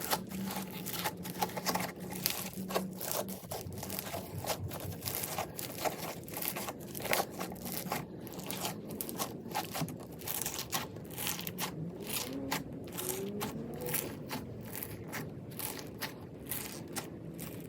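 Bead-packed crunchy slime being squished and pressed by hand, giving dense, irregular crackling clicks.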